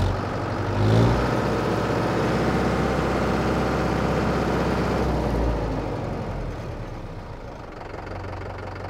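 Mahindra Yuvo 475 DI tractor's four-cylinder diesel engine revving up about a second in as the hand throttle is pulled. It holds the higher revs for a few seconds, then drops back to idle.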